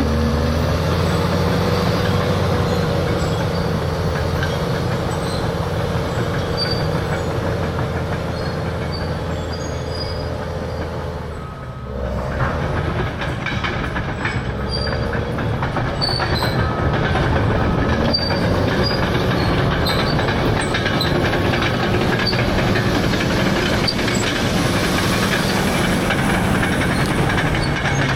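CAT D6R crawler dozer with its C9 diesel engine working under load, a steady drone with a wavering squeal and scattered metallic clicks from the steel tracks. About eleven seconds in the engine eases off briefly, then pulls back up.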